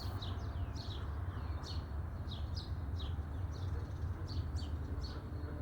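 Small songbird chirping over and over: short, high, downward-sweeping chirps, often in pairs, a few each second, over a low steady hum.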